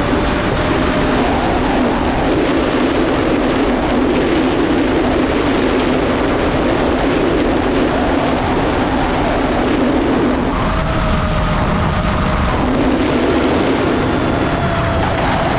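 A 7-inch FPV quadcopter's brushless motors and propellers running in flight, heard from the onboard camera together with rushing wind. A steady motor whine fades in and out over the rush, clearest in the last few seconds.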